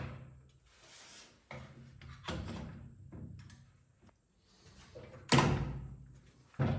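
Hand woodworking noises: short scraping strokes and several wooden knocks and thunks, the loudest about five and a half seconds in.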